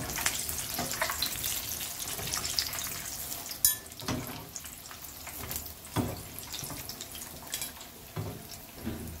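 Yeast donuts deep-frying in a pan of hot oil, a steady sizzle that thins out as the finished donuts are lifted out, with a few knocks and a sharp click of the metal slotted spatula against the pan and mesh strainer.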